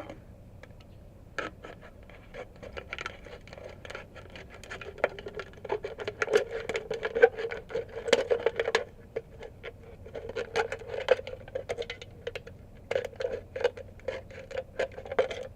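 Thin aluminum drink can being cut apart by hand: a rapid run of crinkling clicks and scrapes of the sheet metal, busiest about midway and again near the end.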